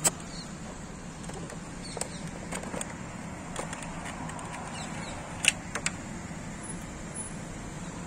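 Scattered light clicks and taps from plastic parts of an opened split AC indoor unit being handled, over a steady low background hum.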